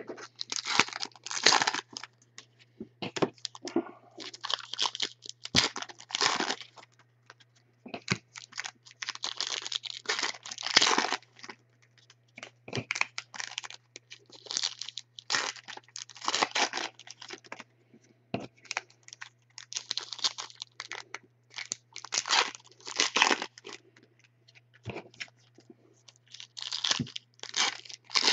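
Foil wrapper of a Bowman Platinum baseball card pack crinkling and tearing open by hand, in repeated short rustling bursts, with cards being handled between them.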